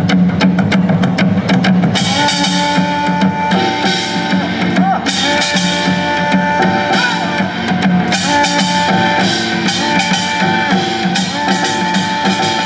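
Live Korean traditional music: drums and percussion keep a steady beat, and about two seconds in a melody of long held notes with small pitch bends comes in over it.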